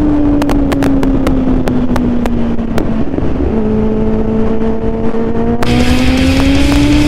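Kawasaki Z750R's inline-four engine under way, its note sagging slowly for about three seconds as speed falls off, breaking briefly around a gear change, then rising steadily again as it accelerates. Sharp crackles on the microphone run through it.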